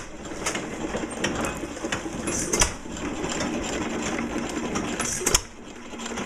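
1924 Fairbanks-Morse Model Z hit-and-miss engine running under belt load, with a sharp firing bang every second or two at uneven spacing between coasting strokes. A belt-driven hand-fed corn sheller clatters steadily along with it.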